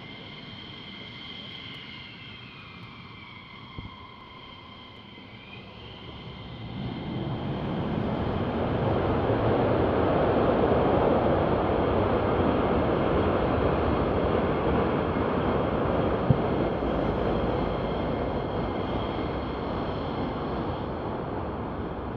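Twin turbofan engines of an F-15E Strike Eagle whining at first, then a loud afterburner roar builds from about six seconds in as the jet takes off. The roar peaks a few seconds later and slowly fades as the jet moves away, with a steady high engine whine underneath.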